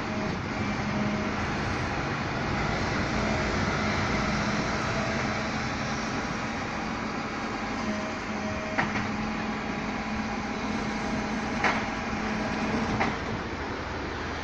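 Rotopress rear-loading garbage truck running steadily, a constant mechanical hum with a low steady tone. Three sharp knocks in the second half as bulky waste is loaded into the back.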